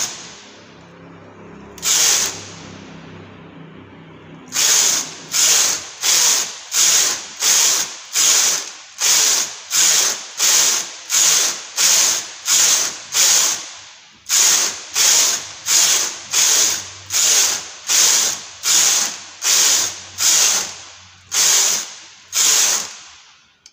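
Chunky-gauge knitting machine carriage pushed back and forth across the needle bed, knitting rows: one short sliding rattle per pass, about one and a half passes a second. The passes stop for a few seconds near the start, then run steadily to the end with one brief break about halfway through.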